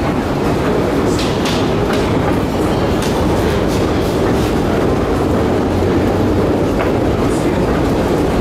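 Steady mechanical rumble of a metro escalator carrying riders down into an underground station, with a few light clacks over the station's general din.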